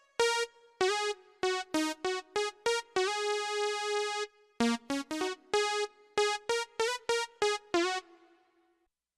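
Artesia PE-88 digital piano playing a melody one note at a time, mostly short, separate notes with one held note about three seconds in. The playing stops about eight seconds in.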